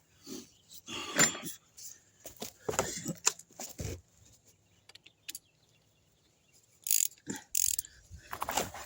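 Irregular clinks and rustles of hand tools and small metal parts being handled, a few separate bursts with short pauses between them.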